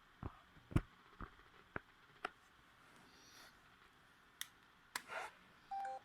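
Mobile phone keys clicking as buttons are pressed, about two clicks a second for the first couple of seconds, then a few more clicks and a brief rustle of handling. Near the end a short key beep steps from a higher note to a lower one.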